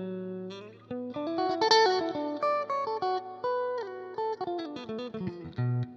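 Fender Stratocaster electric guitar played through a Roland Blues Cube Hot amplifier with its Tone switch on, which brings out the upper mids and thins the sound. It plays a phrase of picked single notes and ends on a low note left to ring.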